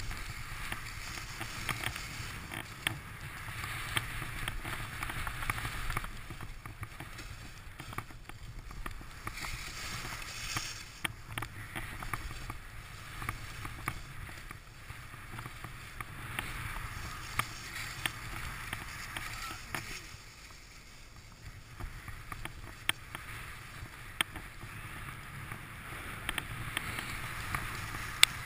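Skis hissing and scraping over packed snow on a downhill run, the hiss swelling and fading over spans of a few seconds, over a steady low rumble. There are scattered sharp clicks throughout.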